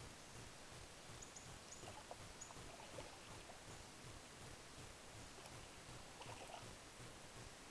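Near silence: a faint steady hiss with a few faint, short high chirps.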